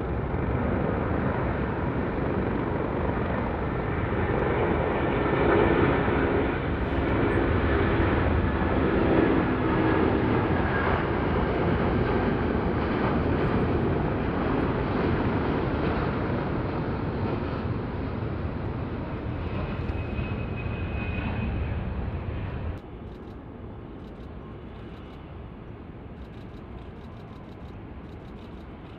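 Jet airliner taking off: a loud engine roar swelling to its peak about six to ten seconds in, then slowly fading. It cuts off suddenly about 23 seconds in, leaving a faint steady background.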